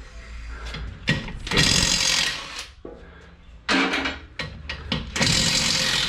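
Impact wrench run in three short bursts of about a second each, loosening the van's wheel bolts to take a wheel off.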